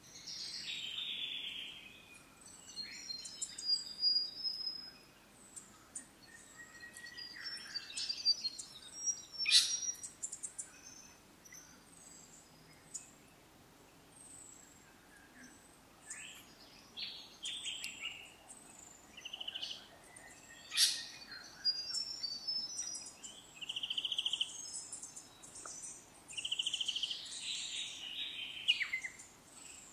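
A mix of wild birds calling and singing: chirps, short trills and whistled notes from several birds, coming and going, with two sharp, loud calls about a third of the way in and again about two-thirds through.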